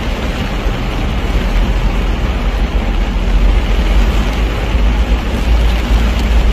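Steady noise of a car driving through floodwater in heavy rain, heard from inside the car: a deep road and engine rumble under the wash of water and rain.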